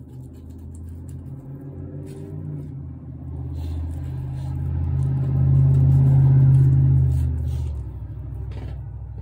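Heavy engine rumbling low and steady, growing louder to a peak about five to seven seconds in, then easing off again near the end.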